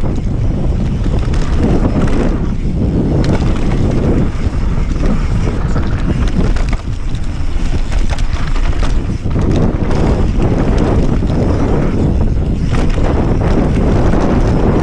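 Wind buffeting a handlebar camera's microphone over the steady rumble of mountain-bike tyres rolling fast on a packed dirt trail.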